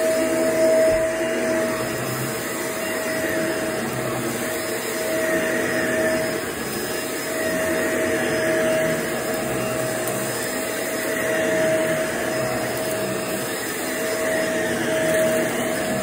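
Shark vacuum cleaner running over carpet: a steady motor whine over rushing suction, its level swelling and easing every few seconds.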